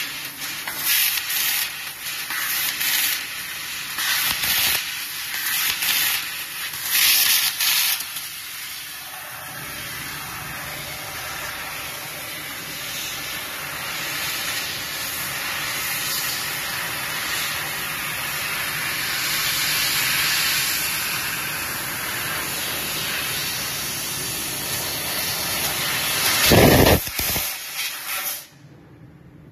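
Fiber laser cutting 3 mm aluminium sheet: the hiss of assist gas blasting through the cutting nozzle, in short on-off bursts for the first eight seconds or so as small holes are cut, then one long steady cutting hiss. A brief louder blast comes near the end, and the hiss then cuts off suddenly.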